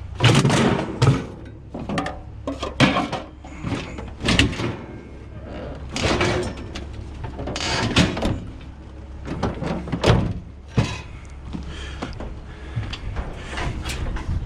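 A series of irregular knocks, thuds and rattles, with scraping in between, as hard objects are handled and knocked together. The loudest knocks come near the start and again about two, four and ten seconds in.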